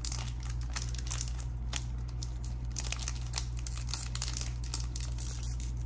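Foil trading-card pack wrapper crinkling in a run of sharp crackles as hands work it open, over a steady low hum.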